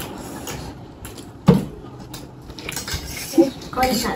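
Cutlery clinking against plates and dishes while people eat, with a sharp clink about a second and a half in and another just past three seconds.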